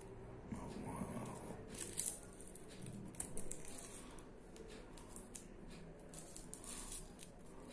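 Faint rustling and crinkling of rolling paper and a card filter tip being rolled between the fingers, with scattered soft ticks. A couple of louder crackles come about two and three and a half seconds in.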